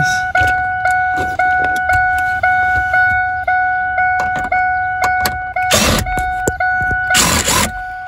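Ford F-150 warning chime dinging over and over, about twice a second: the dinger that stays on when it should be off, a fault that turns out not to be in the ignition switch but on a circuit fed by a 30 A fuse. Two short bursts of rushing noise come in near the end.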